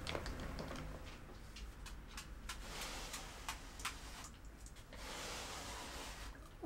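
Handheld sticky lint roller rolled over a cotton bedsheet: scattered sharp crackling ticks, then a stretch of steady rustling about five seconds in.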